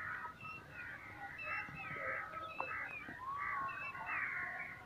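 A chorus of many small birds chirping at once, with dense, overlapping short whistled notes.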